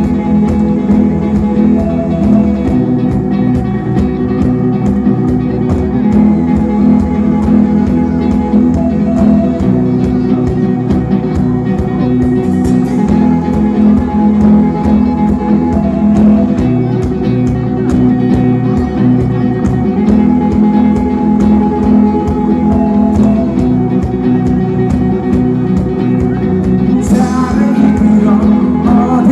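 Live rock band playing loudly through a PA: electric and acoustic guitars, keyboard and drum kit.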